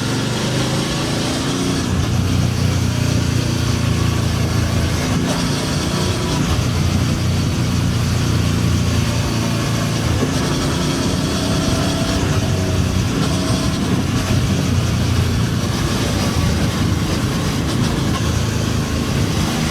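Royal Enfield Super Meteor 650's 648 cc parallel-twin engine running steadily at low revs through its exhaust, close to idle.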